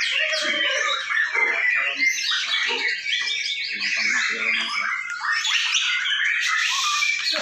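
Several caged white-rumped shamas singing at once in a songbird contest: a dense, unbroken mix of quick whistles, trills and chattering phrases overlapping one another.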